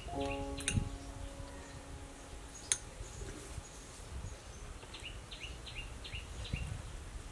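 Outdoor rural ambience with a low rumble: a held, even tone for the first two seconds or so, two sharp clicks, then a quick run of about eight short, high, falling bird chirps about five seconds in.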